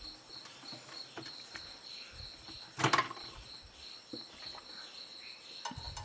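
A cricket chirping steadily in a fast, even pulsing trill, with light clicks and one louder clatter about three seconds in from the dishwasher's plastic spray arms being turned by hand to check they spin freely.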